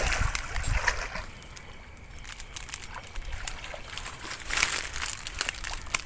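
Splashing and sloshing as a person wades fast through shallow, weedy water, loudest in the first second, then softer sloshing and a few splashes as they bend and reach down into the water.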